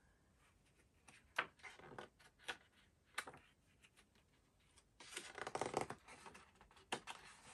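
Pages of a large picture book being turned by hand: faint paper crinkles and rustling, a few separate crackles at first, then a denser rustle for about a second past the middle.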